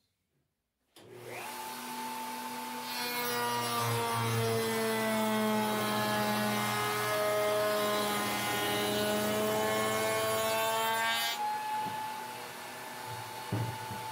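Table-mounted wood router starts about a second in and spins up with a high whine. From about three seconds to eleven it cuts a rounded-over edge along an MDF board with a loud rasping, its motor note dipping under the load. Near the end it runs freely, with a couple of knocks.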